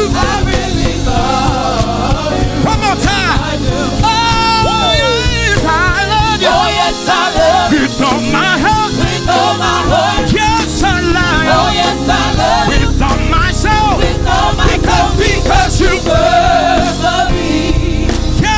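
Gospel singers with a live church band performing an up-tempo song. The voices carry bending, vibrato-rich lines over a full, steady band.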